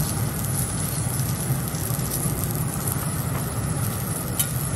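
Food sizzling on a hot steel teppanyaki griddle, a steady hiss over a continuous low rumble, with one light metal clink of the spatula about four seconds in.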